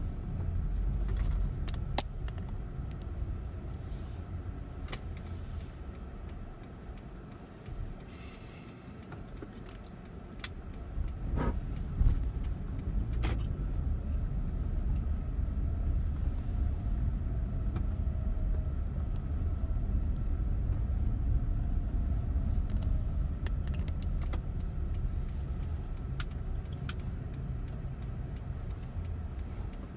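Low rumble of a car's engine and tyres heard inside the cabin while driving. It eases off for a few seconds and then builds again, with scattered light clicks and rattles and a thump about twelve seconds in.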